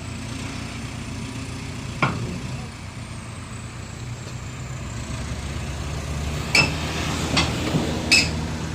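A heavy vehicle engine running steadily, building a little louder partway through, with sharp metallic clanks that ring briefly, one about two seconds in and three more near the end.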